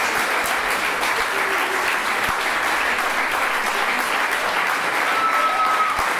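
Audience applauding steadily, with a short high whistle about five seconds in.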